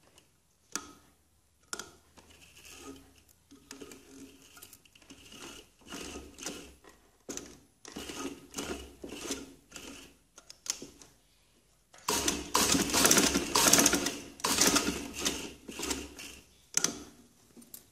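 Black domestic sewing machine stitching in short stop-start runs of rapid clatter, with brief pauses as the fabric is repositioned. About twelve seconds in comes a longer, louder run of stitching.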